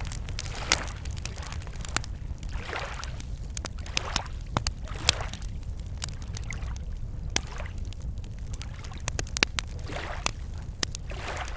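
Campfire crackling with scattered sharp pops, over small lake waves lapping at the shore every second or two, with a steady low rumble underneath.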